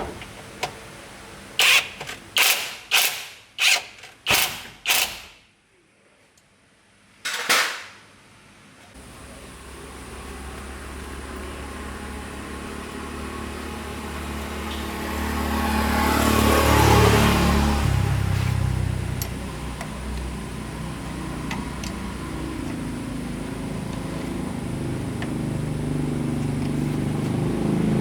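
Six sharp knocks in quick succession and one more a little later, then a motor starts and runs. It builds to a peak about two-thirds of the way through, eases off, and climbs again near the end.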